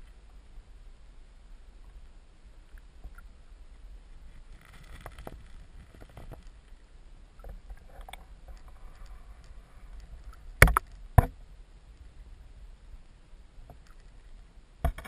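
Stream water heard through an underwater camera: a low steady rumble with scattered faint ticks and scrapes, and two sharp knocks about half a second apart, roughly two-thirds of the way through.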